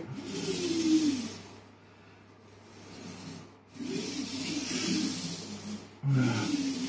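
Small paint roller rolling wet paint over a smooth filled wall: a sticky rubbing hiss in two spells of strokes, quieter between about one and a half and three and a half seconds in. The roller glides easily on the smooth, non-absorbent filler.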